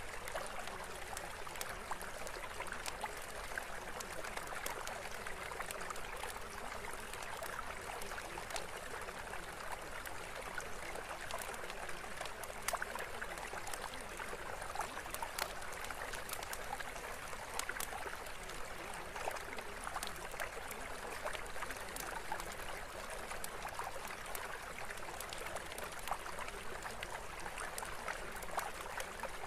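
Steady running water like a trickling stream, an even rushing hiss with scattered faint ticks and no changes. It is the background track of a subliminal recording, laid over layered affirmations that cannot be heard.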